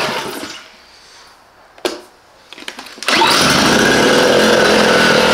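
The Parkside PISE 800 A1 inverter generator's 56 cc petrol engine starts up about three seconds in and runs steadily and loudly. A single click and a few smaller clicks come just before it starts.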